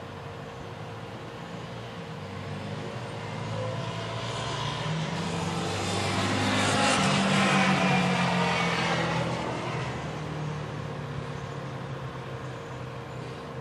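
Front-loader garbage truck's diesel engine running as it maneuvers up to a dumpster. The sound swells to its loudest about seven seconds in, then eases off.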